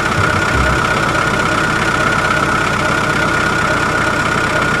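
Steady engine running at idle, with a constant high whine over the rumble.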